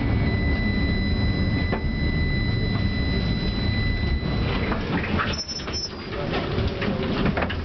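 Tram interior: the car runs on its rails with a steady low rumble and a thin high whine. About five seconds in, the whine stops and the rumble drops away, leaving scattered clicks and rattles.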